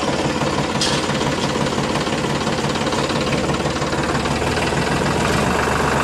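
Tractor engine running steadily at a fast, even beat.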